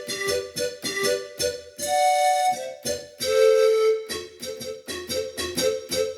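Yamaha PSR-530 portable keyboard playing a single-line melody in one of its built-in voices, a run of quick short notes broken by a few longer held ones.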